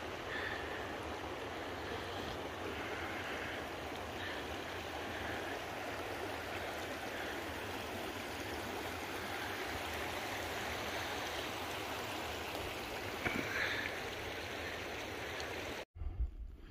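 Steady rush of running water, like a mountain stream flowing; it cuts off abruptly near the end.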